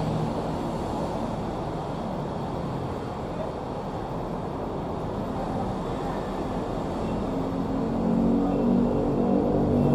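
Steady roar of city road traffic, cars and motorbikes passing on a busy street. Music comes in about eight seconds in and grows louder.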